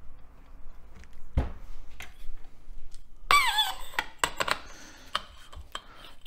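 Metal motorcycle fork parts being handled on a workbench: scattered light clicks and knocks, with one short, high squeak about three seconds in that falls slightly in pitch.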